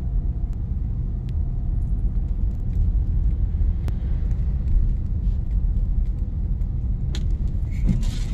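Car driving in heavy rain: a steady low rumble of road and engine, with scattered light ticks and a brief louder rush of noise near the end.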